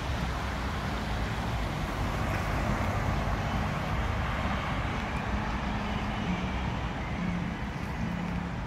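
Steady road traffic noise mixed with the rush of a shallow stream running over rocks, with a low rumble and the faint drone of passing engines.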